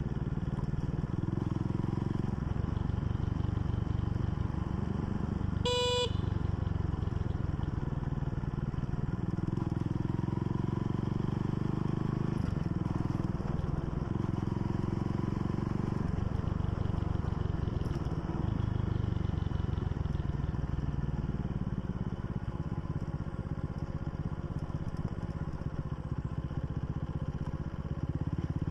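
Motorcycle engine running under way, with a steady low drone whose note shifts a few times with the throttle. A short beep sounds once about six seconds in.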